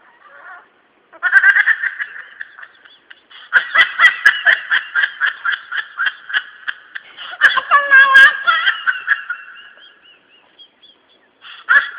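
Cell phone ringing with a rapid trilling ringtone: quick chirping pulses in phrases, starting about a second in, pausing briefly, then a longer run that fades out near the end. Around the middle a lower wavering, gliding sound joins in briefly under the ring.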